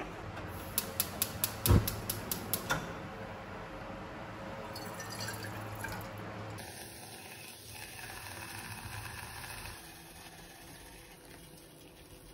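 Water trickling from a small bowl into an empty nonstick saucepan, after a quick run of about eight sharp clicks near the start.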